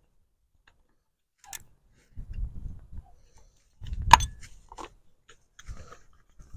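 A Farmall Cub distributor cap and its spark plug wires being handled and worked loose, with scattered small clicks and a sharp click about four seconds in, over patches of low rumble.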